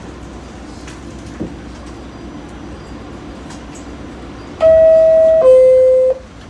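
R46 subway car's two-note door chime, a higher note then a lower one, about a second and a half in all, signalling that the doors are about to close. Under it runs the steady low hum of the standing train.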